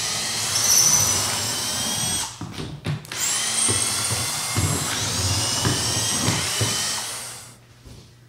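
Power drill or driver running in two long runs, about two seconds and then about four seconds, the second starting with a rising whine. It is backing screws out of the bandsaw's shipping crate to open it.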